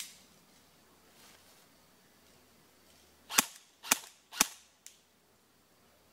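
Airsoft rifle firing three single shots about half a second apart, each a sharp crack, followed by a faint tick.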